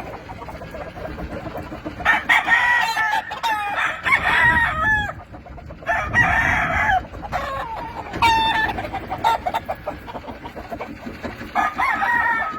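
Kelso gamecocks crowing, about four crows one after another, the first long and partly overlapping with another bird's.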